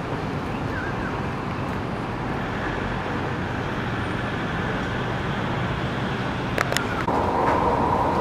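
Street ambience: a steady hum of light, distant road traffic, with a couple of sharp clicks near the end. About seven seconds in it switches abruptly to the louder, steady hum of an indoor underground walkway, with a constant tone in it.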